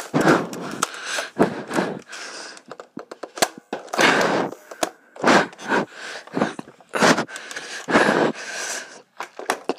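Heavy, fast breathing right against a phone's microphone, coming as noisy breaths about once a second, with scattered sharp clicks and knocks in between.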